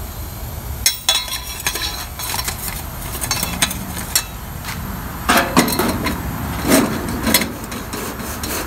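Kerosene heater's metal combustion chamber being handled and set back in place over the wick, giving irregular light metallic clinks and knocks, busiest in the second half.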